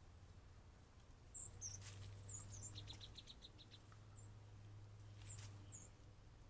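Small birds chirping faintly: scattered high, short chirps, with a quick run of about eight rapid notes around the middle, over a steady low hum.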